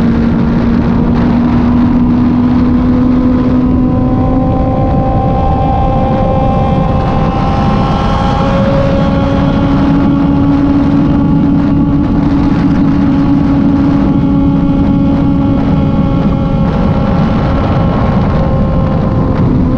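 Kove 450 Rally motorcycle's single-cylinder engine running steadily at cruising speed under load, with a strong rush of wind and road noise. The engine note holds fairly even, shifting slightly in pitch about midway.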